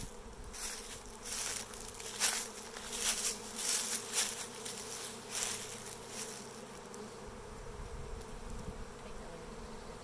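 A swarm of honey bees in flight all around, making a steady, dense hum. Brief hissing rustles come and go over the first six seconds.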